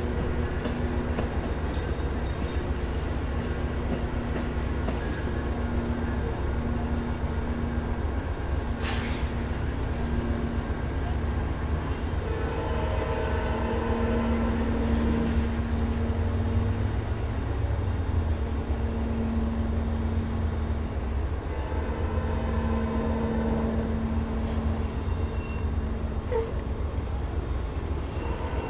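VIA Rail Siemens Charger (SCV-42) diesel locomotive running with a Venture trainset: a steady low drone with held humming tones.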